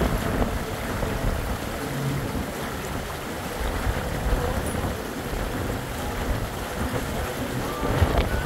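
Wind buffeting the microphone on a moving cruise ship's open deck, a steady low rush with small gusts, with faint voices of passengers mixed in.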